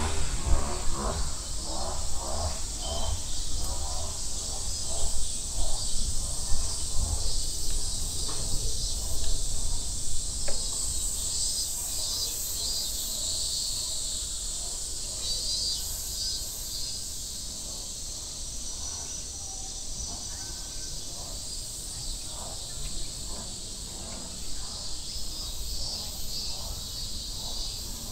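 Summer cicada chorus: a steady high-pitched buzz that never lets up. People's voices are heard during the first ten seconds, and there is a low rumble underneath.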